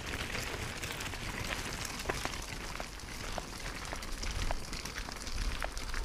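Gravel crunching under walking feet and pushchair wheels on a path: scattered small irregular ticks and crackles over a low rumble that grows louder near the end.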